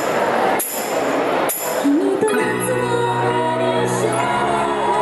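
Crowd noise with a few evenly spaced ticks about a second apart, then about two seconds in a woman starts singing a slow song over sustained accompaniment.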